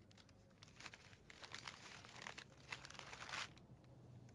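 Gift wrapping paper crinkling as a present is unwrapped by hand: a quick series of quiet rustles that stop about three and a half seconds in.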